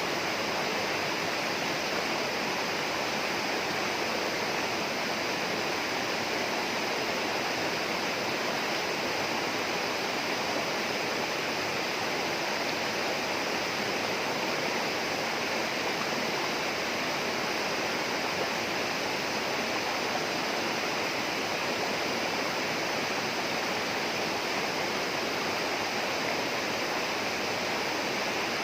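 Steady rushing water of a rainforest stream or waterfall, an even, unbroken rush.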